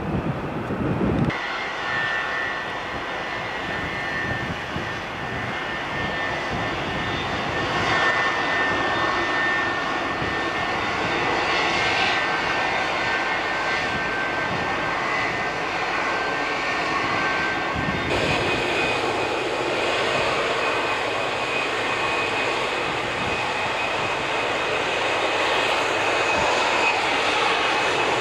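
McDonnell Douglas MD-87 jet airliner taxiing, its engines running with a steady roar and a thin high whine. Well over halfway through, the sound changes to a BAC One-Eleven jet on approach, its engine whine a little higher in pitch.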